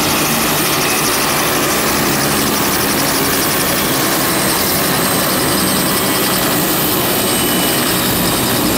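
Robinson R66 turbine helicopter running on the ground with its main rotor turning: a steady, loud turbine whine and rotor rush.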